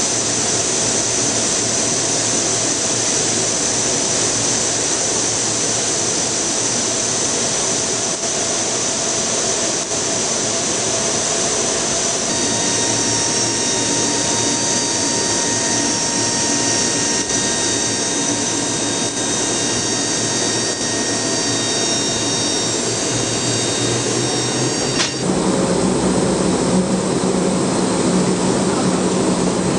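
Lockheed C-130 Hercules' Allison T56 turboprop engines running during engine start, a loud steady whine. About twelve seconds in several steady tones join it, and near the end the sound shifts suddenly to a stronger, lower drone.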